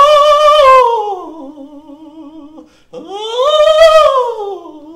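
A man singing in an exaggerated mock-operatic style, two long phrases with a wide vibrato. Each phrase swells up to a loud high note and then slides down to a lower held note.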